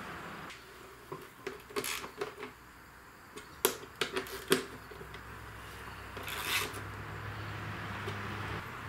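Scattered light clicks and taps of bolts and a small socket driver against a Kohler Courage engine's plastic shroud as coarse bolts are started by hand and turned in, with a brief scratchy rub near the middle. A low steady hum sets in about halfway through.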